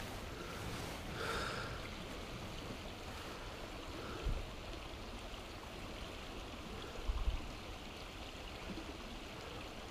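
Mountain stream flowing steadily, with two soft low thumps about four and seven seconds in.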